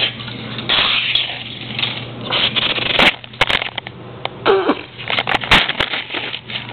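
A child making battle sound effects with the mouth, a run of hissing blasts and a short gliding cry, mixed with sharp clicks and knocks of plastic toy figures striking and clattering.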